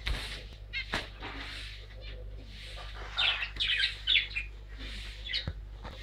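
Small caged finches calling with short, nasal chirps: a few near the start and a quick run of calls from about halfway on, with a few light knocks in the cage.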